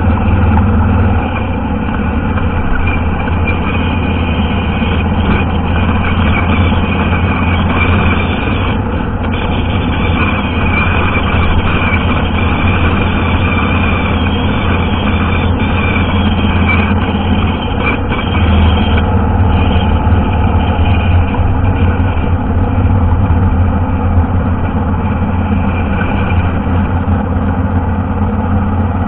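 Motorcycle engine running steadily while riding, with wind and road noise. The engine note dips briefly about two-thirds of the way through.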